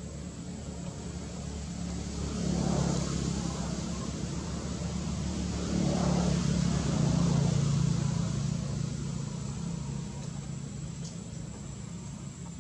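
A motor vehicle's engine running, getting louder about two seconds in, louder again from around six seconds, then fading away.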